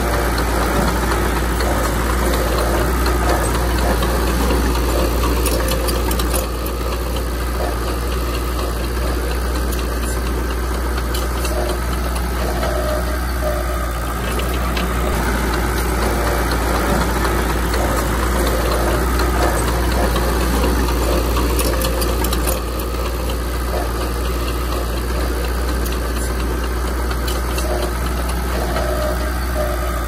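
Bulldozer's diesel engine running steadily, with occasional sharp clanks.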